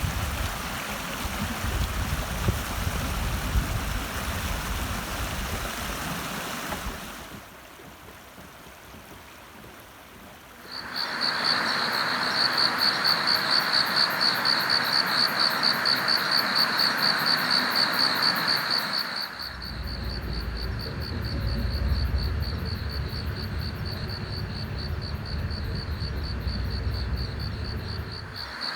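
A rushing noise, then, after a short quieter stretch, steady high pulsing chirping of insects over a hiss. A low rumble joins in about two-thirds of the way through.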